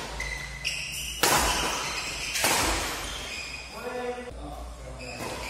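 Badminton rackets smacking the shuttlecock, a couple of sharp hits echoing in a large hall, with a short call from a player about four seconds in.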